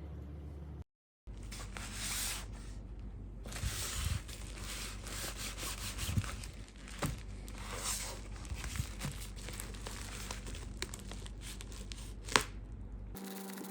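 Plastic and paper packaging being torn open and crinkled by hand, with scattered sharp clicks and crackles, over a steady low hum.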